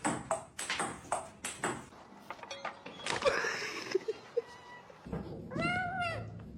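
A quick run of sharp clicks, then a domestic cat gives one drawn-out meow, rising and falling, near the end.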